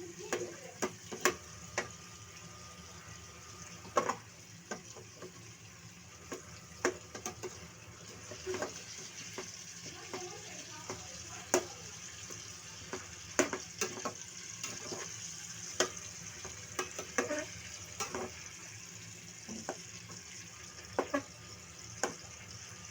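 Chicken frying in a pan: a steady sizzle with irregular clicks and scrapes of a utensil against the pan as it is stirred.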